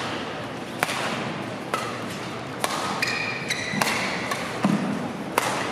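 Badminton rally: rackets striking the shuttlecock in sharp cracks about once a second, with a short squeak of shoes on the court floor near the middle, over a steady murmur from the arena crowd.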